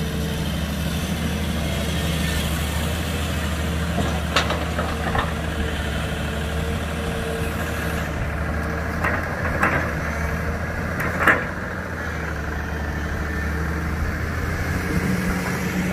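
Excavator engine running steadily at an even low pitch, with a few short sharp knocks, the loudest about eleven seconds in.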